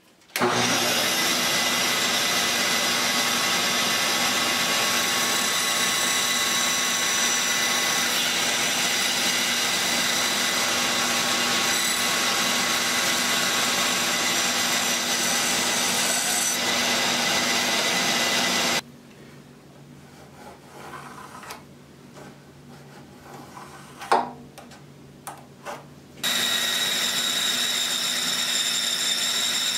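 Electric power tool running steadily on wood with a constant motor whine, shaping the taper of a new wooden wheelbarrow handle. It stops about 19 seconds in, there is a sharp knock during the pause, and it starts up again about 26 seconds in.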